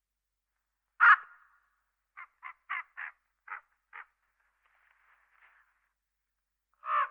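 Owl calls: one harsh call about a second in, a quick run of six short clipped notes, then another harsh call near the end.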